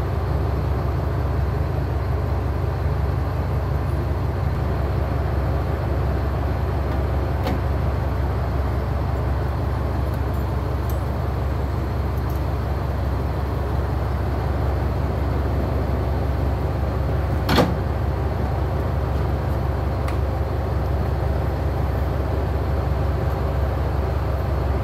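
Diesel railcar's engine idling with a steady low rumble. One sharp knock stands out about two-thirds of the way through.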